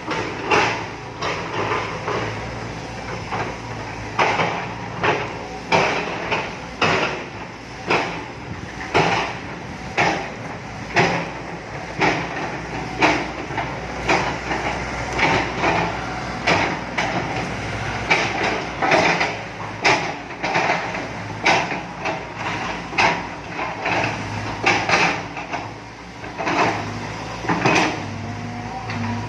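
Excavator's diesel engine running with a steady low hum, under repeated loud clanks and knocks coming roughly once a second as the machine works.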